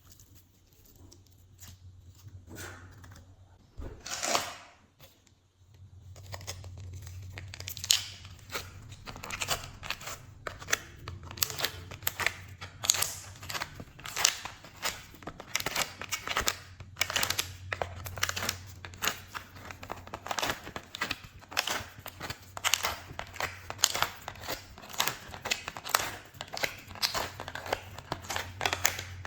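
Glossy slime being mixed and stretched by hand, giving many quick, irregular sticky clicks and pops. The first few seconds are fairly quiet apart from one short sound about four seconds in; after that the clicking is dense and continuous over a low hum.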